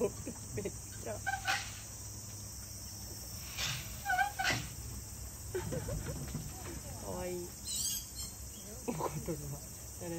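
Outdoor ambience: a steady low background with a few short chirping calls and faint, distant voices scattered through it.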